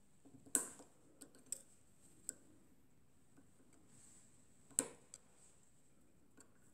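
Small steel hand tool clicking and tapping against the metal parts of a homemade radial engine's crankshaft and master rod as it is worked in a small hole: two sharper clicks, about half a second in and near five seconds in, with a few lighter ticks between.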